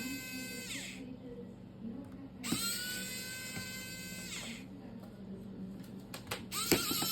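Small electric precision screwdriver whining in short runs as it backs out tiny Phillips screws. Each run rises in pitch as the motor spins up and falls away as it stops, with one run ending about a second in, another lasting about two seconds in the middle, and a third starting near the end. A few light clicks fall between the runs.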